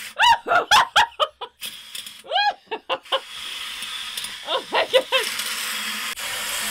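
Squealing laughter over water spraying hard from a just-opened ball valve on a new PEX shower line into a plastic bucket, driven by full garden-hose pressure. The water is a steady hiss that fills the second half, under the louder laughing squeals.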